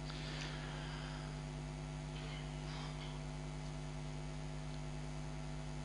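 Steady electrical mains hum with a faint hiss, a low buzz with a few even overtones in the microphone and sound system.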